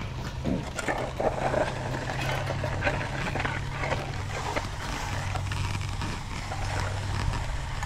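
Long-handled concrete float, a steel Fresno, scraping and swishing irregularly as it is pushed and pulled over wet concrete, over a steady low hum.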